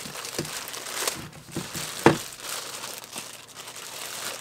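Clear plastic packaging bag around an LED cable light crinkling as it is handled, in irregular crackles with a sharp snap about two seconds in.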